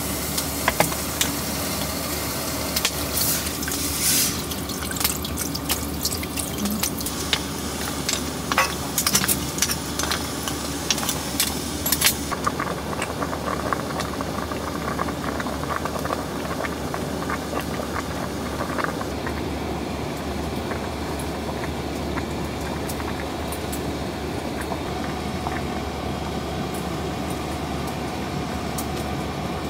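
Water bubbling in a pot at the boil, with many small pops and crackles over the first twelve seconds or so, then a steadier hiss.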